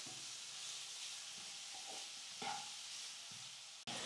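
Chopped vegetables sizzling in a hot pan with a steady hiss, and a wooden spatula stirring them with a few soft scrapes.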